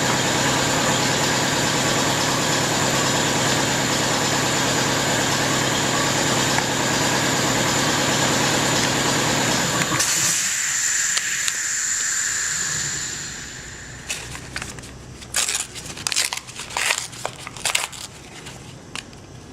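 A machine runs steadily with a high whine, then winds down and stops about ten to thirteen seconds in. It is followed by a series of small clicks and taps of parts being handled.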